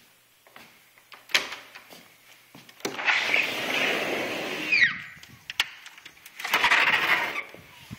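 A sliding glass door rolled open along its track for about two seconds, ending in a short squeak, then a sliding screen door rolled open about two seconds later. A sharp click comes before them, about a second and a half in.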